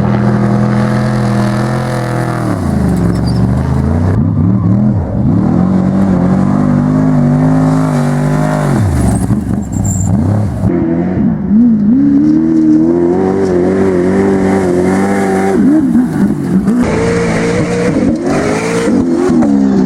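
Trophy truck engine running hard at high revs. The pitch drops sharply about two and a half seconds in and again about nine seconds in, then climbs back up as the throttle comes on again. Several shorter dips and rises follow near the end.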